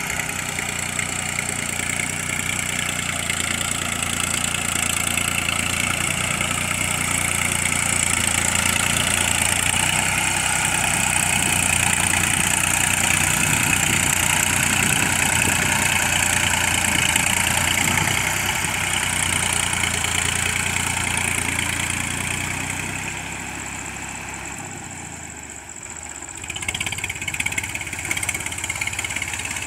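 Ford 3600 tractor's three-cylinder diesel engine running steadily as it drags a levelling board through flooded paddy mud. The sound dips near the end, then comes back louder and more uneven.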